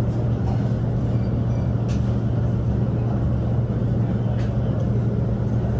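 Steady low mechanical drone of the ventilation and ground machinery around a parked airliner during boarding, with a few faint clicks.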